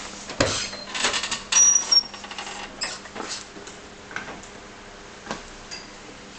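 Clicks and knocks from car body parts and tools being handled during reassembly, densest in the first two seconds, with a brief high squeak about two seconds in.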